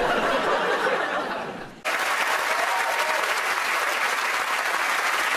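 Studio audience laughing and clapping, broken off by an abrupt cut about two seconds in, then steady applause from the audience and the panel.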